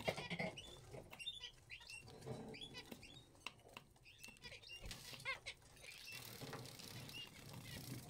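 Zebra finches calling with many short, squeaky beeping chirps, scattered and overlapping, over a light patter of the birds splashing in shallow water dishes.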